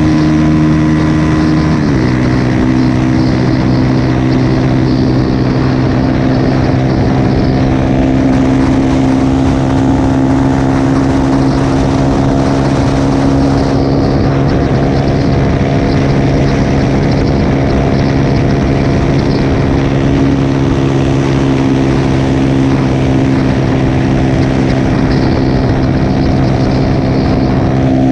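A 150 cc single-cylinder motorcycle engine, bored out with a 190 cc big-bore kit, running at a steady cruise. Its pitch drops a little about two seconds in, then holds steady.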